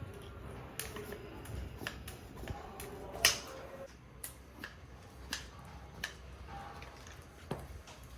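Plastic vacuum cupping cups and their hand pump being worked on a back, making about a dozen short, sharp clicks at uneven intervals. The loudest click comes about three seconds in.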